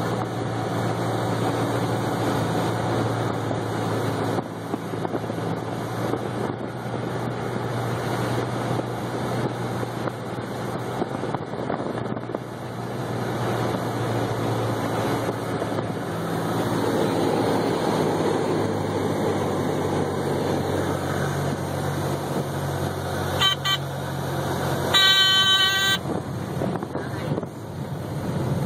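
The engine and propeller of a high-wing light aircraft run steadily at low power on the landing approach, heard from inside the cabin. Near the end the stall warning horn sounds briefly, then again for about a second, as the plane is flared for touchdown.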